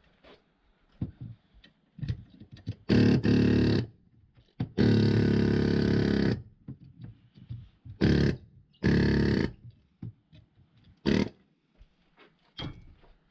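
Handheld power tool buzzing in short trigger bursts against a copper-wound motor stator as it cuts the windings free, about five bursts, the longest in the middle. Light clinks of metal between the bursts.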